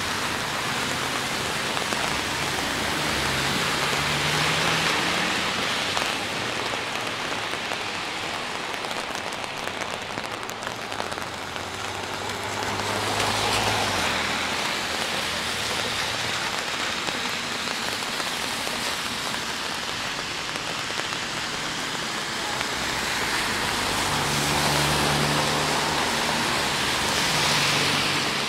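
Steady rain falling on a city street, with cars passing on the wet road three times, each pass a swell of tyre hiss and engine hum.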